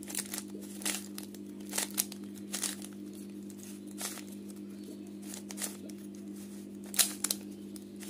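A 3x3 Rubik's cube being twisted to scramble it: irregular plastic clicks as the layers turn, roughly one a second, with a quick cluster near the end, over a steady low hum.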